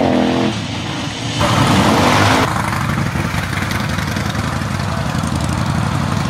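Small vehicle engine running steadily. The sound changes abruptly about two and a half seconds in.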